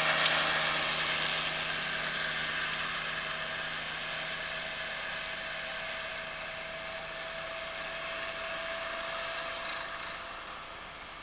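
Motor carriage's engine running as the vehicle drives past and away, its steady hum fading over about ten seconds.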